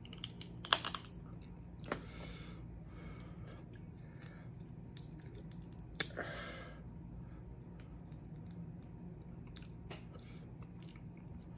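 A person eating a seafood boil: chewing and mouth sounds with scattered sharp clicks, the loudest about a second in and about six seconds in.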